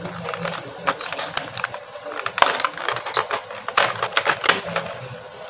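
Wooden colour pencils clicking and clattering against each other and the clear plastic case tray as they are handled and lifted out: a run of irregular sharp taps, busiest around the middle and about four seconds in.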